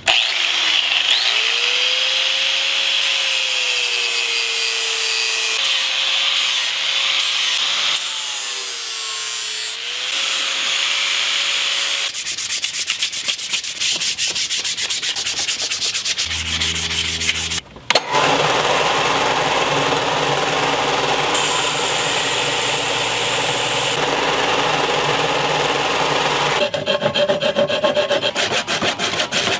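Angle grinder shaping a purpleheart wood axe handle, its motor whine dipping and recovering as it bites into the wood. After a cut, sandpaper rubs the handle in fast strokes, followed by more steady sanding.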